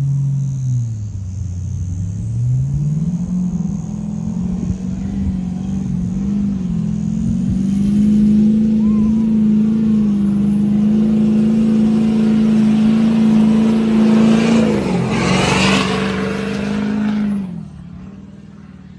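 Duramax turbo-diesel engine in a Nissan Patrol working under load, towing a camper trailer through soft sand. The revs rise and fall, then hold high and steady. About fifteen seconds in the truck passes close by with a rush of noise, and then the engine note drops away.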